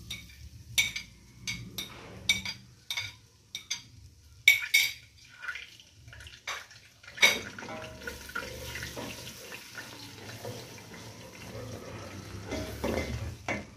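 Crushed garlic going into hot oil in a steel pot. For the first half there is a run of sharp taps against the pot. About seven seconds in, after a louder knock, the oil sizzles steadily as the garlic foams up and a wooden spatula stirs it.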